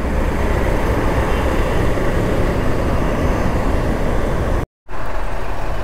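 Wind rush and road noise while riding a Honda Hornet 160R motorcycle, with its engine running underneath. The sound cuts out completely for a moment about three-quarters of the way through.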